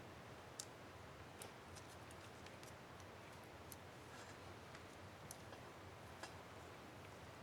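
Faint, irregular small plastic clicks against near silence, from handling an Asus K55A laptop's space bar keycap and its clips.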